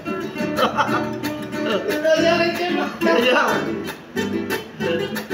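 Acoustic guitar played with a capo, plucked and strummed in an instrumental passage of a Latin American folk song, with voice-like sounds heard alongside at times.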